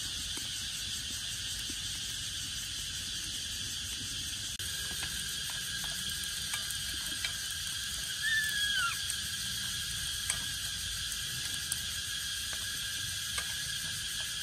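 Steady chorus of night insects, with faint scattered clicks and one short, falling squeak about eight seconds in.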